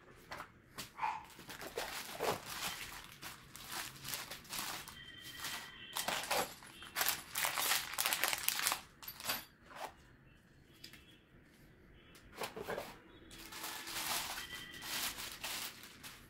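Paper instruction-manual pages being turned and a plastic bag of small mounting hardware crinkling as it is handled, in irregular rustles with a short lull about ten seconds in.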